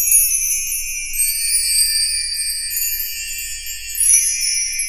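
A sparkling jingle-bell and chime sound effect: a steady, high-pitched shimmer of many small ringing tones, swelling briefly near the end.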